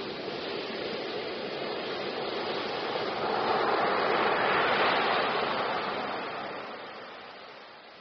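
Ocean surf: a wave breaks and its foam rushes up the beach. The wash swells to its loudest about halfway through, then fades away.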